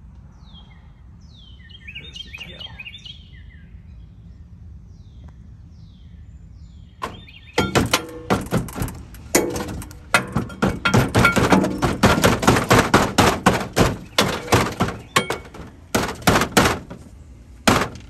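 Birds chirping faintly for the first few seconds, then a rapid, irregular series of loud knocks and thuds lasting about ten seconds.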